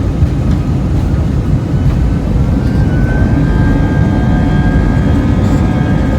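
Airbus A319's IAE V2500 turbofan engines heard from inside the cabin: a loud, steady low rumble with an engine whine that rises about halfway through and then holds, as the engines spool up.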